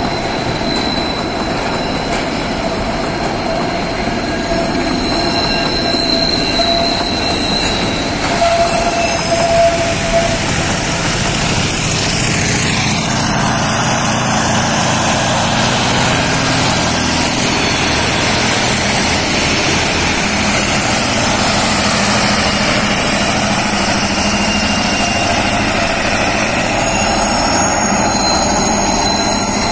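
Freight train of boxcars climbing a curving grade, its wheels squealing on the curve in steady high tones over the rumble and clatter of the wagons. From about halfway, an EMD-powered G22U diesel-electric helper locomotive working at full power passes, adding a low engine hum.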